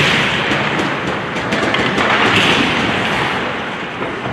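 Ice hockey play: a steady wash of skates scraping the ice and crowd noise, with several sharp clacks of sticks and puck.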